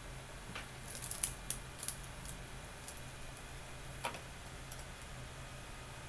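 Light clicks and taps of small metal tools, tweezers handled in an aluminium parts tray, several in the first two seconds and one more about four seconds in, over a steady low hum.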